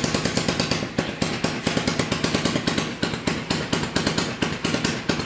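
Motorcycle-type engine mounted in a home-built ATV chassis, running at idle with a rapid, even beat of exhaust pulses, about eight a second.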